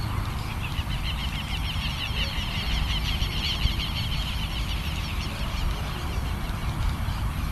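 A bird calling in a fast run of short, high chirps for a few seconds, over a low steady rumble.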